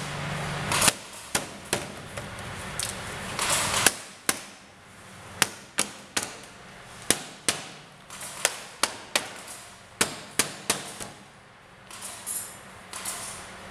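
Hammer blows on a bamboo frame during assembly: irregular sharp knocks, some in quick runs of two or three, with a short lull near the end.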